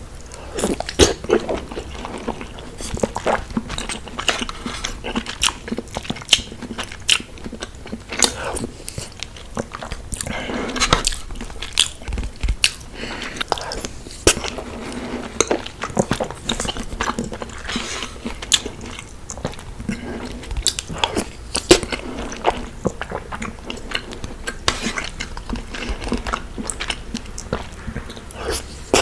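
Close-miked chewing and wet mouth sounds of someone eating soft Indian sweets, with many irregular smacks and clicks.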